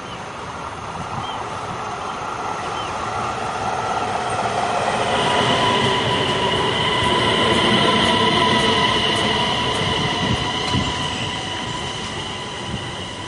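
Electric multiple-unit passenger train pulling into the platform and slowing. The rumble of its wheels on the rails swells and then eases, and a steady high whine or squeal comes in about five seconds in and holds.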